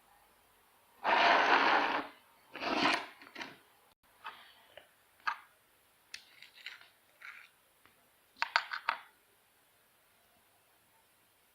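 Orange glitter being shaken out of a small plastic container: a second-long rustling pour, a shorter one, scattered clicks and scrapes, then a quick run of four or five taps.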